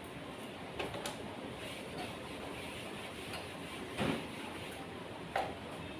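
Chalkboard duster rubbing across the board as the chalk drawing is wiped off: a soft scuffing with a few light knocks, the loudest about four seconds in.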